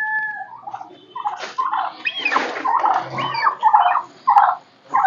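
Farm animals calling: a quick run of short, high cries, several a second apart, after a brief steady tone at the start.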